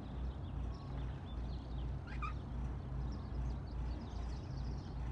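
A boat engine idling with a steady low throb, as birds chirp here and there over it.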